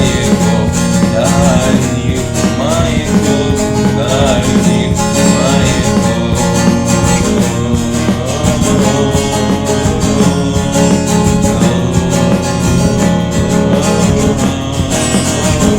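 Instrumental music with guitar at the end of a song, no singing.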